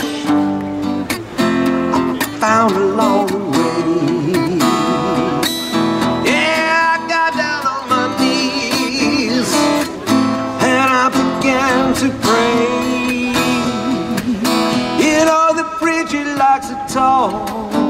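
Music: strummed acoustic guitar with a wavering melody line over it.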